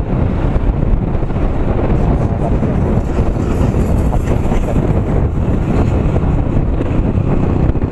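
Steady wind rush on the microphone of a moving motorcycle, with the motorcycle's engine and road noise underneath.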